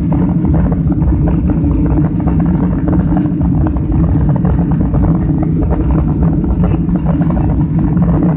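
Jet airliner's engines and airflow heard inside the passenger cabin during the climb just after takeoff: a loud, steady low rumble.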